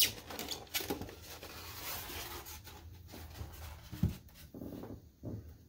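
Polystyrene foam packaging being handled: the foam lid of a model's case is pulled off and set down, foam scraping and rubbing on foam. There is a sharp knock at the start and a dull thump about four seconds in.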